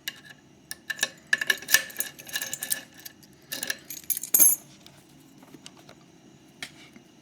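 Small metal parts clicking and clattering as a euro cylinder lock and its tools are handled and clamped into a vise: a quick flurry of clicks over a few seconds, ending in a louder clack, then one faint click.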